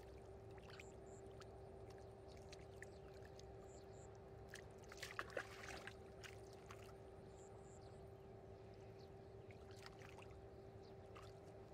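Hands groping and sloshing in shallow muddy water: small irregular splashes and squelches, with a cluster of louder ones about five seconds in.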